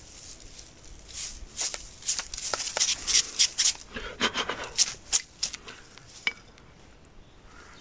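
A bundle of dry grass tinder handled and pulled apart by hand: an irregular run of crisp crackles and rustles, thickest in the middle, easing off near the end.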